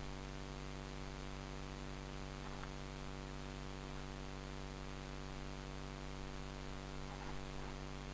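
Steady electrical hum and hiss of the recording itself, with no clear sound event; only a couple of faint brief sounds, one about two and a half seconds in and one near the end.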